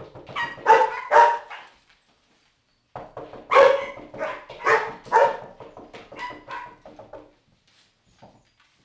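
Chihuahuas barking in high, sharp barks: two barks about a second in, then a rapid run of barks from about three and a half to seven seconds in.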